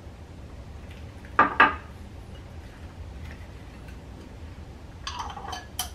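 A utensil clanking twice against a frying pan, about a quarter second apart, then lighter clinks near the end.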